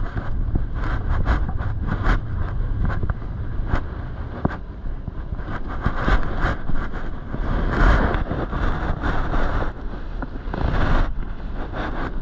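A car moving slowly through a parking manoeuvre: steady low engine and road rumble with frequent short knocks and rattles.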